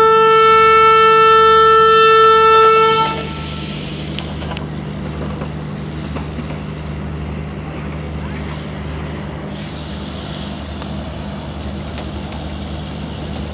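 WAP-7 electric locomotive's horn sounding one long, steady blast that cuts off after about three seconds as the Rajdhani Express departs. A steady low drone from the train carries on after it.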